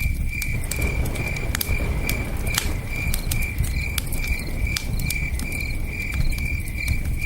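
Campfire crackling with sharp, irregular pops over the steady low rush of a river, while crickets chirp in an even rhythm of about two chirps a second.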